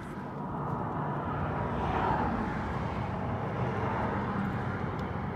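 Outdoor traffic rumble, swelling about two seconds in as a vehicle goes by.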